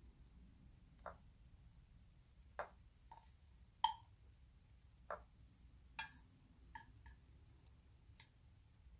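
Light, irregular clicks and taps, about nine in all, of a utensil and food being set down on a ceramic plate as meatballs are placed on it one by one; the sharpest click comes about four seconds in.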